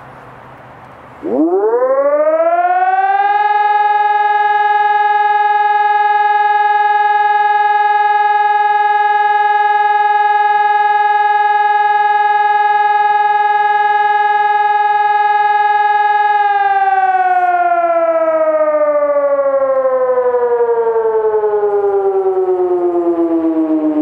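Rheinlandsirene PPSS 600-C electronic siren sounding the civil-defence test signal (Sirenenprobe). About a second in, a loud tone sweeps quickly up in pitch. It holds steady for about fifteen seconds, then slowly falls in pitch as it winds down.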